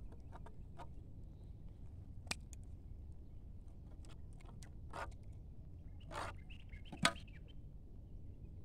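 Scattered snips, clicks and rustles from scissors cutting the roots and branches of an uprooted bidara (Indian jujube) sapling while it is handled, with one sharp snap about seven seconds in.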